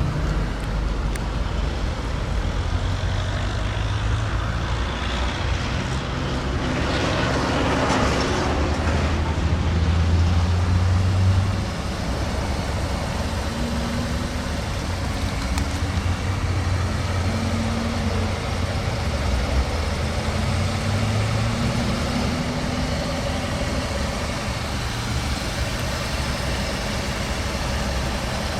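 Motor vehicle engine running with a steady low hum and traffic noise. The sound grows louder about seven seconds in and drops back suddenly near twelve seconds.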